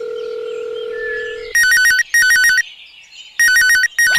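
A steady electronic tone, then an electronic telephone ringing with a warbling two-pitch trill in two double rings, about two seconds apart.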